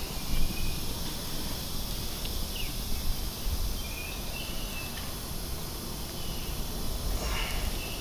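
Outdoor background: a steady low rumble with short, faint bird chirps now and then.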